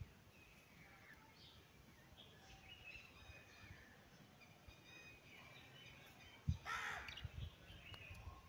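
Faint, scattered bird chirps in the background. About two-thirds of the way in there is a low thump, then a single louder, harsh animal call lasting under half a second.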